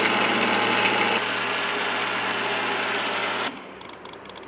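Electric mixer grinder running with a steady hum, blending pomegranate with milk into juice. It gets a little quieter about a second in and is switched off about three and a half seconds in, cutting out suddenly.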